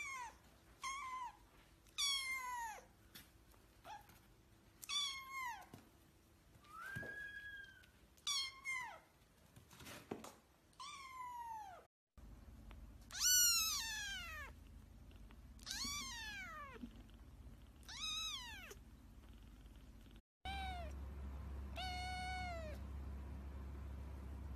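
Kittens meowing: a string of short, high-pitched meows that fall in pitch, about one every second or two, from several different kittens in turn.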